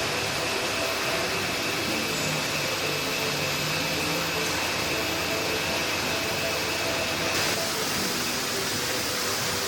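Factory machinery running steadily: an even mechanical noise with a hum and a high whine, which stops about seven seconds in as the noise changes.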